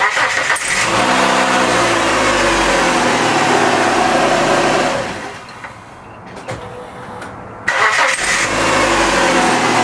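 A 2002 Dodge Neon's engine being cranked over by its starter in two goes: about five seconds of cranking, a quieter pause of a couple of seconds, then cranking again from about eight seconds in.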